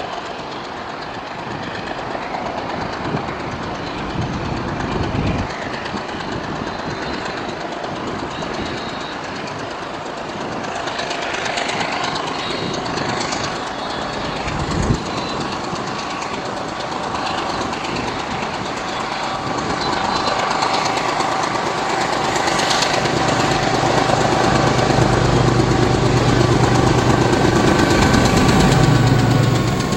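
WDP1M ALCo diesel locomotive hauling a passenger train, with wheels running on the rails and the engine growing steadily louder as it comes closer. A deep engine drone sets in about two-thirds of the way through and is loudest near the end, then cuts off suddenly.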